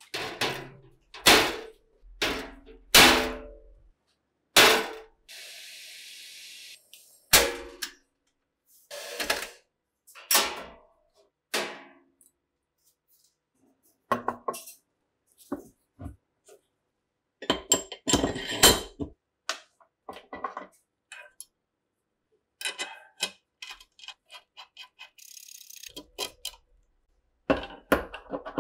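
Steel parts of an SA-26 submachine gun being handled, tooled and set down: a series of separate metallic clinks, knocks and scrapes. A short steady hiss about five seconds in, and another near the end.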